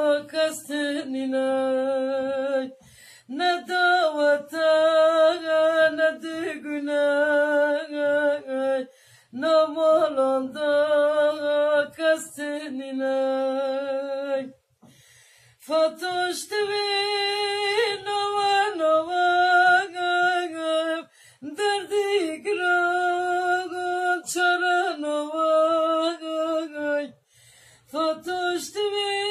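A solo voice singing a Kurdish ağıt (lament) unaccompanied, in long held phrases with wavering, ornamented pitch, each phrase broken off by a short pause for breath.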